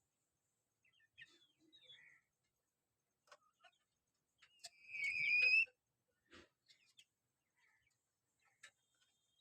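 Bird calls: scattered faint chirps and clicks, with one louder, slightly rising call lasting about a second about halfway through.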